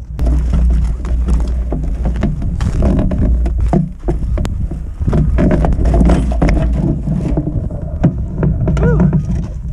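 Continuous rumbling and rattling with many sharp knocks as the carrier holding the camera is hauled over rough, frozen ground.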